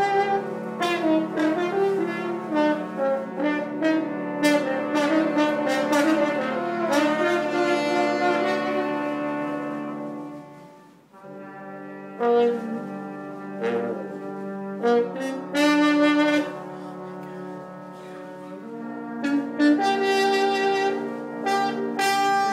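Live jazz ensemble playing, a brass horn carrying the lead over held chords. About halfway through the music drops almost to a pause, then comes back with short punched notes before the ensemble swells into held chords again.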